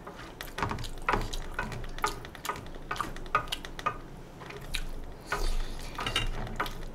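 Chopsticks clicking and scraping against a stainless steel tray as saucy fried noodles are picked up, in short irregular taps, with eating sounds in between.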